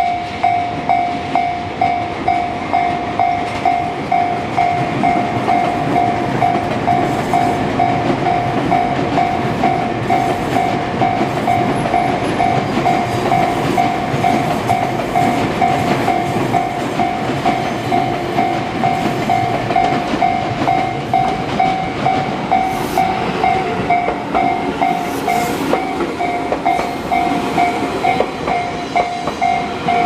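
Railway level crossing warning bell ringing steadily in an even, rapid beat, about two rings a second. Behind it, Tobu electric commuter trains run over the crossing with wheel rumble and rail-joint clatter; one passes close near the end.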